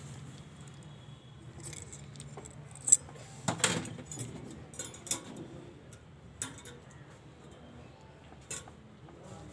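Metal surgical instruments clinking and jangling in short, separate clicks, about half a dozen spread over several seconds.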